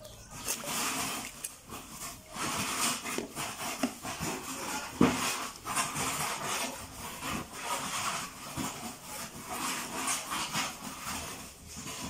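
Wet handling of raw split duck carcasses in a plastic tub of water: irregular splashing, squelching and rustling, with a sharp knock about five seconds in.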